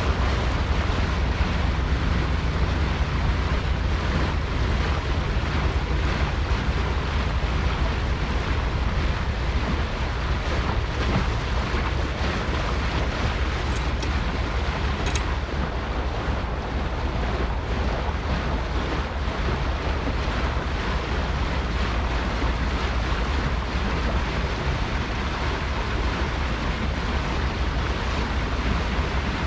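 Steady wind rumbling on the microphone with a constant rush of water from a boat under way.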